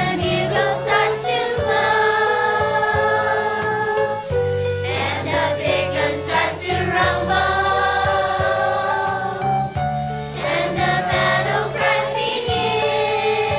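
Music: a choir singing long held notes over instrumental accompaniment.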